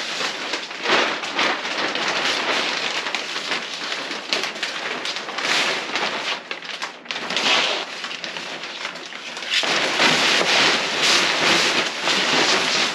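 Large clear plastic sheets crinkling and rustling continuously as they are handled and spread out, with a louder stretch of crackling in the last few seconds.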